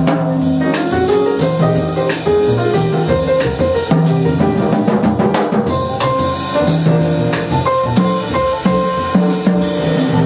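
Jazz piano trio playing: grand piano, upright double bass and a drum kit played with sticks, with cymbal and drum strikes under the piano line.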